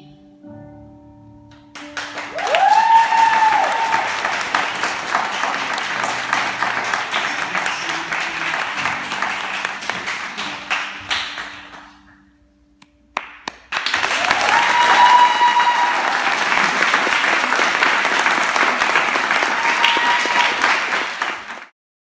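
Audience clapping and cheering, with a few whoops. It comes in two bursts: the first fades out about 12 s in, and the second starts abruptly about 14 s in and cuts off just before the end. The faint tail of the dance music comes before the first burst.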